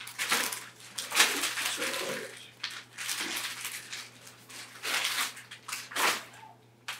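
Brown paper shopping bags rustling and crinkling as they are handled, in several separate bursts.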